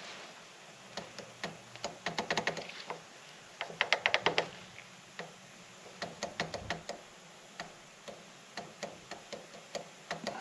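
Light metallic taps and clicks from a limited-slip differential carrier being worked by hand while its clutch-pack clearance is checked with a dial indicator. The taps come in quick runs of several at a time, the busiest about four seconds in, with single taps between.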